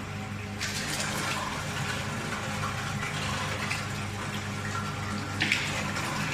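Italy-style commercial electric meat grinder running, its motor giving a steady low hum under an uneven, wet-sounding noise of meat being forced through the grinder plate.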